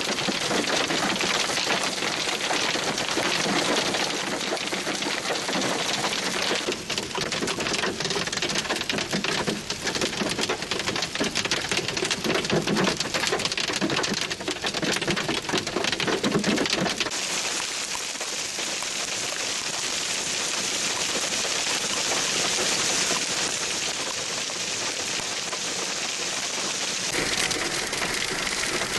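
Heavy hail pelting down, a dense rain-like clatter of countless hailstones striking the ground, road and vehicles. About halfway through it changes to a smoother, steadier hiss.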